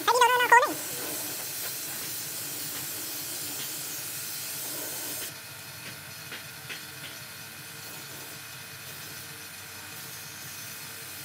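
Gravity-feed spray gun hissing steadily as compressed air atomises gloss PU finish; the hiss drops in level a little past five seconds in. A short, loud warbling pitched sound right at the start.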